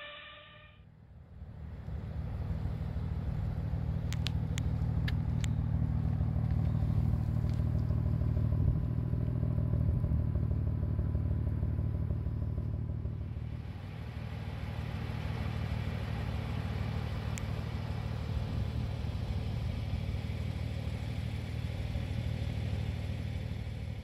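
A 2016 BMW M3's twin-turbo inline-six idles through its quad exhaust with a steady low rumble and no revving. A few light clicks come about four seconds in.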